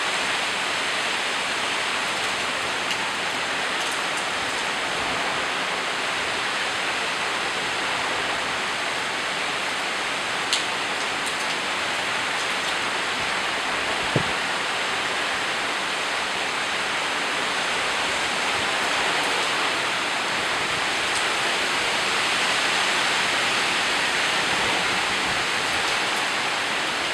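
Heavy wind-driven rain and gusting wind: a steady, even rushing noise, with a couple of faint ticks midway.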